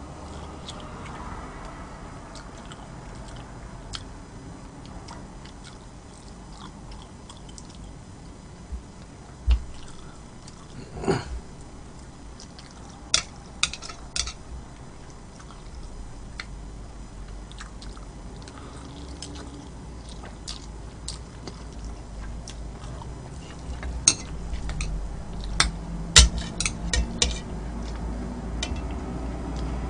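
Close-miked eating: chewing, with sharp clicks of utensils against a dish coming in small clusters, the loudest near the end.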